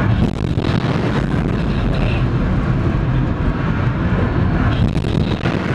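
Steady, loud, low rumbling roar with no distinct blasts or strokes.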